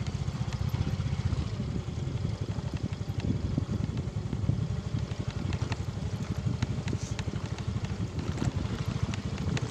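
Motorcycle engine running at low speed while riding over a rough dirt and gravel track, with a steady pulsing rumble and a few sharp knocks from bumps.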